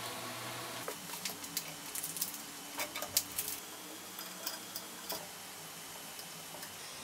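A steady low hum cuts off about a second in, followed by an irregular run of light clicks and taps, like small hard parts being handled and fitted during assembly of a CNC machine.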